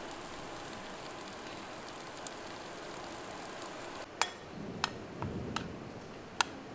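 Steady rain falling on street pavement. About four seconds in it gives way to a metal spoon stirring dry powder in a glass bowl: a soft scraping, with several sharp clinks of the spoon against the glass.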